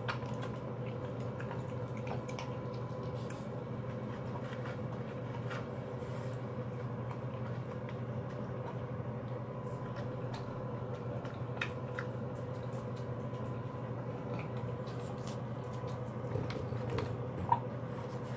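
French bulldog eating dry kibble from a plastic bowl: scattered irregular crunches and clicks of chewing and of the bowl, with one sharper click near the end, over a steady low hum.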